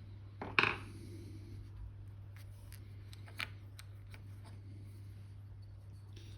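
Small clicks and taps of miniature tank model parts being handled and set down on a work surface during assembly: a sharp click about half a second in, a second one about three and a half seconds in, and faint ticks between, over a steady low hum.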